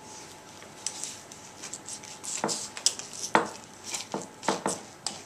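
Stainless-steel pineapple corer-slicer being twisted down through a whole pineapple: crunching, scraping fruit with scattered sharp clicks and knocks, busier and louder from about halfway through.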